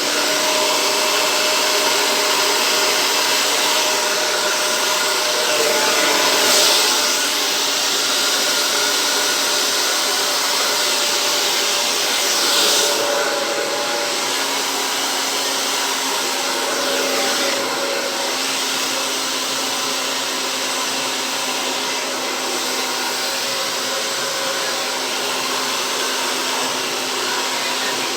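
Hair dryer running steadily, a rush of air over a faint motor hum, swelling briefly about six and a half and thirteen seconds in. It is blowing fluid acrylic paint across a canvas in a Dutch pour.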